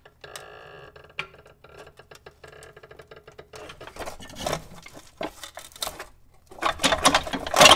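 Rusted steel suspension hardware under a car being worked loose by hand. A faint steady hum is followed by scattered metal clicks, which build near the end into a burst of loud metallic clattering and scraping as the bottom plate comes free.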